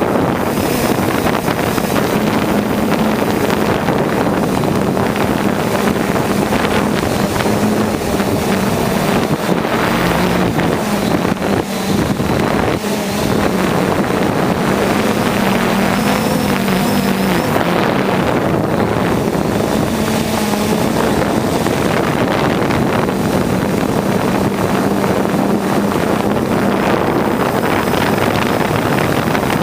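A drone's motors and propellers run steadily in flight, a droning hum that shifts slightly in pitch now and then, mixed with wind rushing over the microphone.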